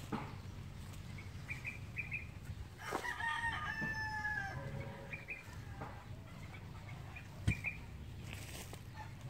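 A rooster crows once, a long call of about two seconds that falls in pitch at its end, with short bird chirps around it. A single sharp knock sounds near the end.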